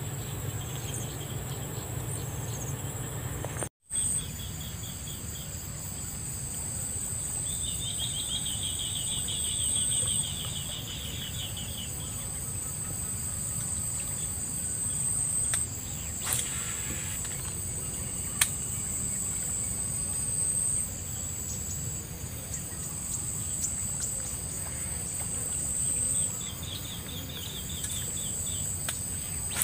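Insects chirring: a steady high-pitched drone that fades and returns in stretches. A lower rapid trill comes in twice, with a few faint clicks.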